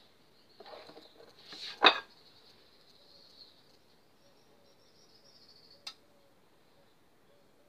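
A ladle scooping thick batter out of a mixing bowl, with one sharp knock of the ladle against the bowl just before two seconds in and a lighter click near six seconds.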